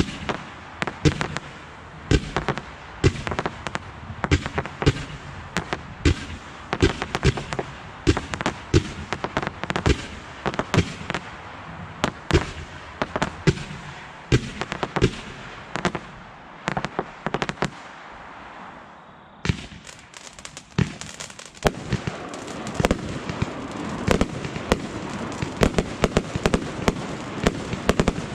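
Fireworks going off: a rapid, continuous string of sharp bangs and pops, several a second. About three-quarters of the way in, a steady rushing noise rises beneath the bangs.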